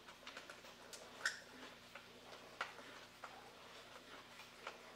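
Faint, irregular clicks and taps of a small screwdriver turning a tiny screw in a plastic toy robot's body shell.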